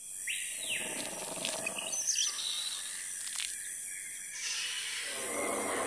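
Jungle ambience sound effect: birds calling and chirping over a steady high hiss. A fuller rushing sound swells in near the end.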